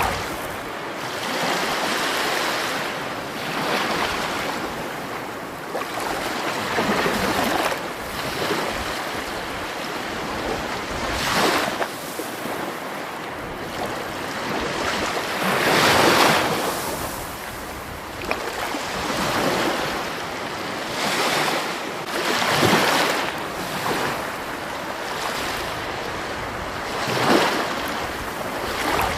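Rushing water, a steady wash with louder surges every few seconds.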